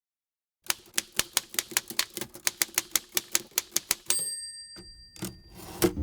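Manual typewriter typing: a fast, even run of keystrokes at about five a second. About four seconds in, the margin bell dings once. Two heavier clunks follow near the end.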